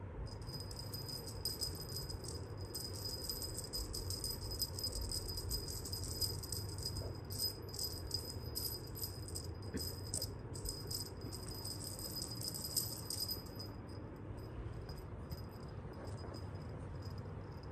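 Small jingle bell on a cat wand toy, jingling fast and continuously as the toy is shaken over the kittens, with a thin steady ring. About thirteen seconds in it thins to scattered jingles.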